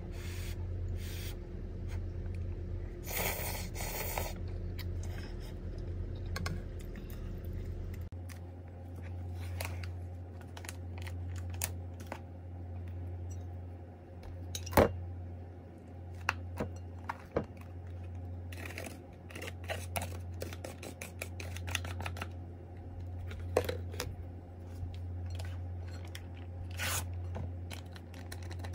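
Small tableware handling sounds: utensils clicking and scraping, first against a steel pot and then as a plastic spoon scrapes cooked rice from a plastic container onto a ceramic plate. A sharp tap comes about halfway through, and a curry pouch rustles near the end. A steady low hum runs underneath.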